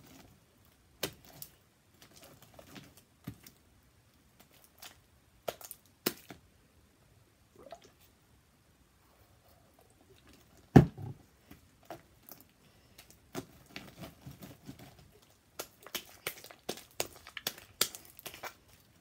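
Sticky slime, made stickier with added Dial soap, being squeezed, pulled and stretched by hand, giving scattered wet clicks and pops. One much louder slap comes about eleven seconds in, and the clicks come thick and fast near the end.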